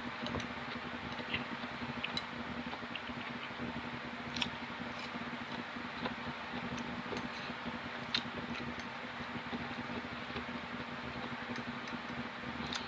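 Steady low room hum and hiss, with a few faint, scattered clicks and taps.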